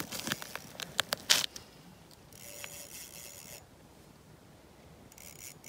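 Clothing and fishing-gear handling noises: a quick run of clicks and rustles in the first second and a half, then a scraping hiss about two seconds in and another brief one near the end, as the angler handles his line and kneels down on the snowy ice.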